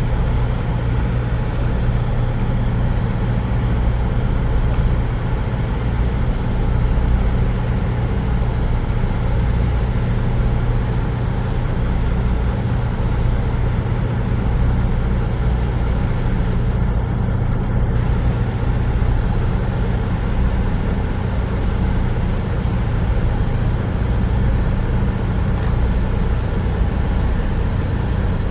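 Steady low mechanical drone, a deep hum held at a few fixed low pitches under an even noise, with no rise or fall.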